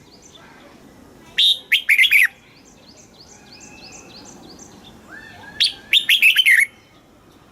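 Red-whiskered bulbul singing: two loud, quick phrases of a few whistled notes each, about four seconds apart, with fainter repeated chirps in between.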